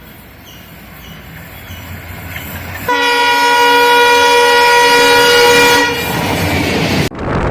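Train horn sounding one long, steady blast of about three seconds, starting a few seconds in, over the rumble of a train on the rails that grows louder through the opening seconds.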